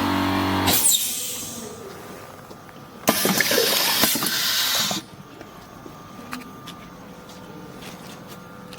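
Pneumatic filling machine run once by its foot pedal: about three seconds in, a loud hiss of compressed air lasts about two seconds and stops abruptly, followed by a few faint clicks. Before that, a steady motor hum from the air compressor cuts off less than a second in with a short hiss of air.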